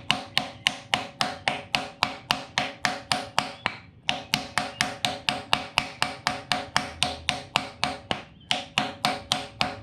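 Hammer blows in a fast, even series, about three a second with two short breaks, each with a metallic ring: a pilot bearing being driven into the end of the crankshaft through a piece of wood.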